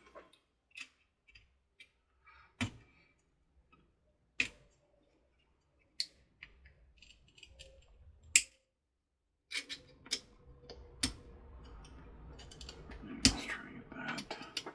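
A small hand tool scraping and picking at hardened glue around an LED in a Christmas village house casting: scattered sharp clicks and ticks, turning about halfway through into busier, steadier scraping with more clicks.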